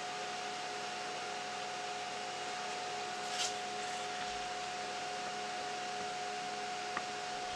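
Steady background hum with a constant high-pitched tone over an even hiss. A short hiss comes about three and a half seconds in and a small click near the end.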